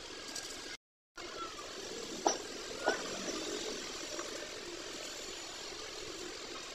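Steady workshop background noise with two sharp metal clinks about half a second apart, a little over two seconds in. The sound drops out completely for a moment just under a second in.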